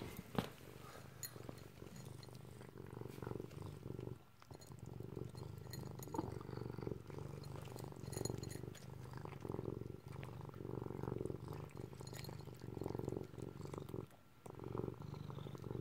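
Domestic cat purring steadily while it eats dry kibble from a bowl, the purr swelling and ebbing with brief pauses, over small crunches and clicks of the kibble.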